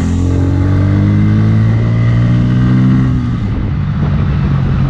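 Bajaj Pulsar N160's single-cylinder engine, heard from the saddle with wind noise, its note falling for about three seconds as the bike slows after a top-speed run, then holding steady at lower revs.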